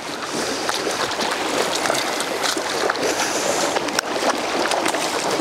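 Fast, shallow river water rushing steadily over a riffle, an even hiss of broken water.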